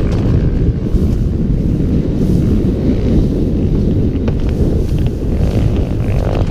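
Wind buffeting the microphone on a moving trail motorcycle, a steady low rumble, with the engine of a Honda Tornado bored out to 319cc, a single-cylinder four-stroke, running underneath.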